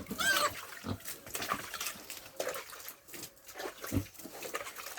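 Pigs in a pen giving short grunts, with a brief rising-and-falling squeal right at the start, among scattered knocks and rustling. A single low thump comes about four seconds in.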